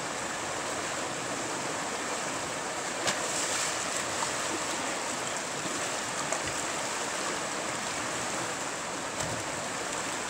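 Steady rushing of water over a shallow river rapid, with one sharp knock about three seconds in and a few fainter ticks after it.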